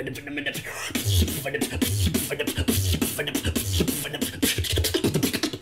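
Solo beatbox routine: a beatboxer making deep bass kicks about twice a second under rapid clicking hi-hat and snare sounds, with short vocal effects in between.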